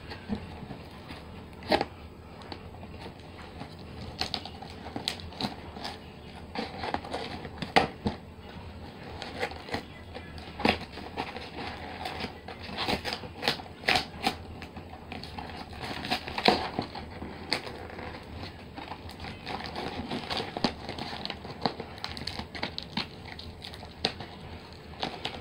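Cardboard shipping box and its packing being worked open by hand: irregular crinkling and crackling with scattered sharp snaps.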